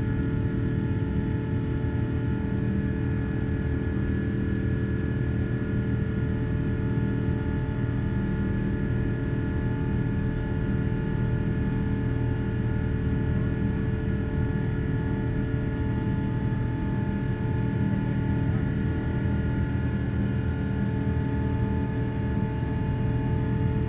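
Jet airliner engines heard from inside the cabin during the climb after takeoff: a steady low drone with a few steady whining tones over it.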